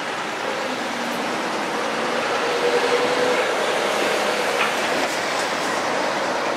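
Liebherr R 936 crawler excavator's diesel engine and hydraulics running steadily under load, with a faint whine in the middle, as its bucket tips soil into a dump truck.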